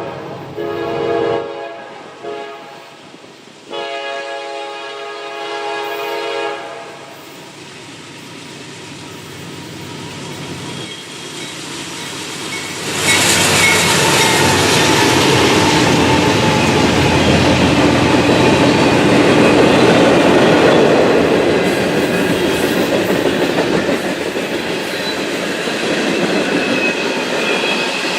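Diesel freight train locomotive horn sounding a short blast and then a long one in the first seven seconds, followed by the train rolling past close by from about halfway in, loud, with the clickety-clack of wheels over the rails.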